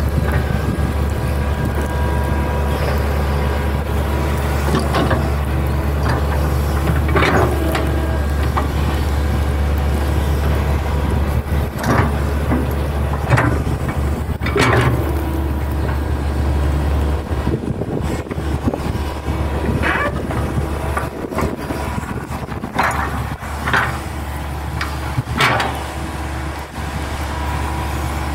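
Hitachi hydraulic excavator's diesel engine running steadily while it digs soil and roots with its bucket, with sharp knocks and clanks every few seconds.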